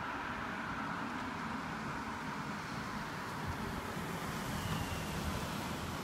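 Cars moving off over a level crossing as it reopens: steady road-vehicle running noise, with a second car passing close near the end.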